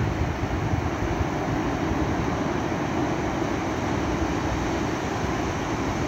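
Ocean surf on a flat sandy beach: small waves breaking offshore and washing up over the sand, a steady rushing noise with a low rumble.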